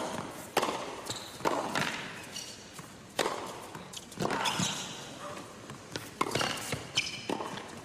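Tennis rally: the ball is struck by rackets and bounces on a hard court, giving sharp knocks about once a second, each echoing briefly in a large indoor arena.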